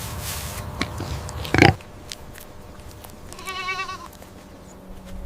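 Farm animal calls: a short, loud call about a second and a half in, then a wavering, pitched call lasting about half a second a little later.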